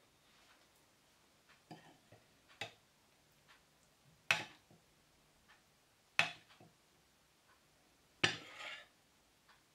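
A metal spoon clinking against a ceramic soup bowl while scooping up thick soup: a few light clicks, then three sharper clinks about two seconds apart, the last trailing on briefly.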